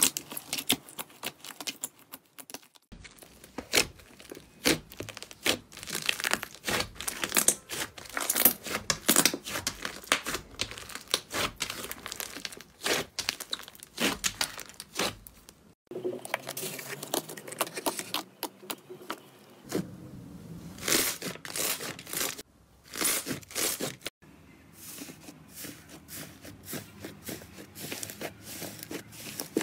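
Hands squeezing, stretching and folding soft slime, giving a dense run of sharp, sticky clicks and crackles. There are short breaks about three seconds in, near the middle and about two thirds through as one clip gives way to the next.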